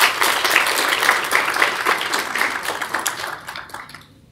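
Audience applauding, a dense run of hand claps that dies away near the end.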